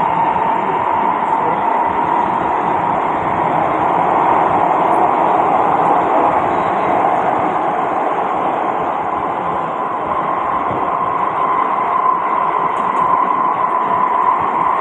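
SMRT North-South Line metro train heard from inside the carriage, running between stations: steady wheel-and-rail running noise with a persistent mid-pitched hum that grows slightly stronger near the end.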